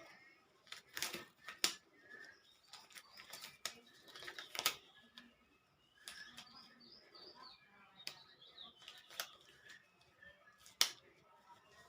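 Small birds chirping in the background, with scattered sharp clicks and knocks; the loudest click comes near the end.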